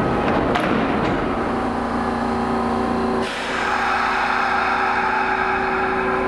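Kintetsu 5800-series electric train standing at the platform with a steady hum and whine from its onboard equipment, and a short clank about half a second in. About three seconds in, one hum cuts out and a steady hiss of escaping air starts, typical of the brakes being released just before departure.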